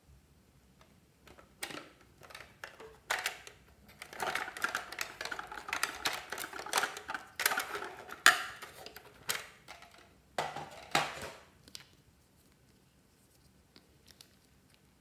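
Pink plastic toy vending machine being handled: a dense run of plastic clicks and clattering, busiest in the middle and stopping about twelve seconds in.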